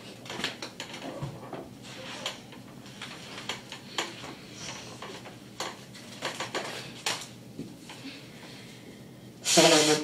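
Book pages being turned and handled, a run of soft paper rustles and crinkles, then near the end a short, loud vocal outburst.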